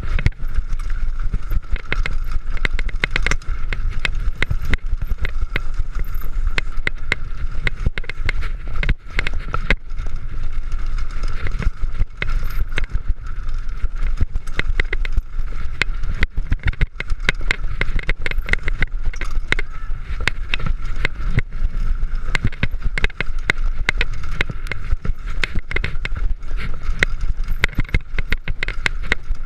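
Mountain bike rolling down a rough bike-park trail: a constant dense clatter of knocks and rattles over a low rumble.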